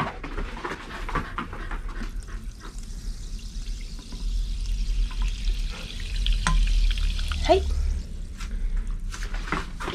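Carbonated water poured from a bottle into a stainless steel bowl, splashing and fizzing as the bubbles rise, with scattered small crackles.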